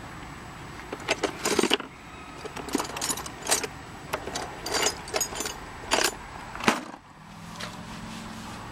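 Irregular clicks, clinks and short rattles of hard objects being handled, with a steady low hum coming in about seven seconds in.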